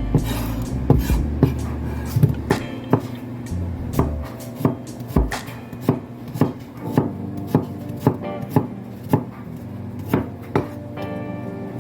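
Knife or cleaver chopping on a cutting board, irregular strokes about two a second, over a steady low background sound.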